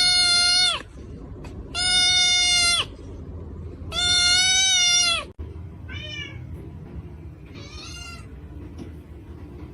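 Domestic cat meowing: three long, loud, steady meows, then two shorter, fainter ones.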